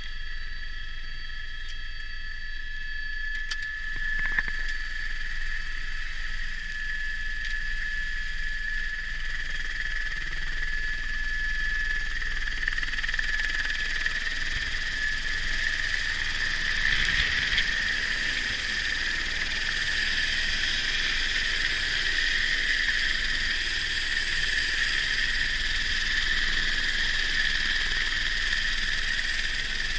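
Turbine helicopter running, a steady high whine over rotor and engine noise, first heard from inside the cabin and then close beside the landed machine with its rotor still turning; the whine grows slightly louder from about halfway. A short knock about four seconds in.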